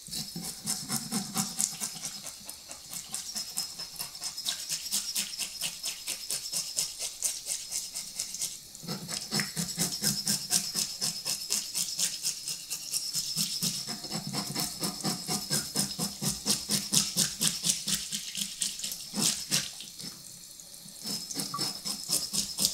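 Fish scaler scraping the scales off a striped beakfish (ishidai): rapid, rhythmic rasping strokes, several a second, with a couple of brief pauses.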